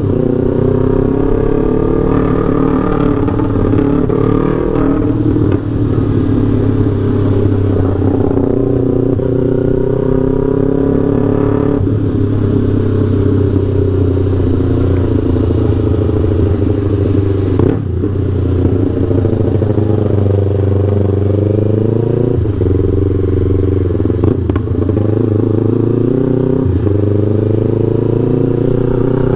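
Yamaha R3's 321 cc parallel-twin engine breathing through a FullPro aftermarket full exhaust, with a remapped ECU. The bike is ridden under way, its pitch climbing as it pulls and dropping sharply at about half a dozen gear shifts.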